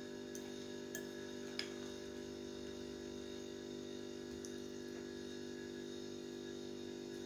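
A steady electrical hum, with a few light clicks of a metal spoon against a glass bowl as a thick yogurt-and-kale mixture is scooped onto a plate, three of them in the first two seconds.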